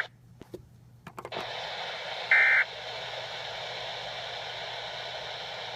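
Weather radio receiver hiss with a faint hum. The signal drops out with a few clicks for about the first second and a half. About two and a half seconds in comes one short burst of SAME digital data tones.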